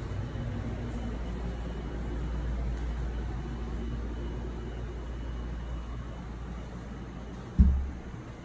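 Steady low rumble with a faint hum, with one heavy thump about seven and a half seconds in.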